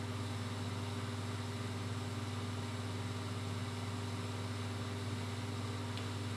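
A steady low machine hum that holds level throughout, with no clear eating sounds standing out above it.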